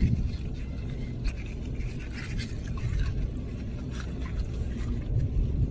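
Small scrapes and clicks of a seashell being handled in a rubber-gloved hand, over a steady low rumble.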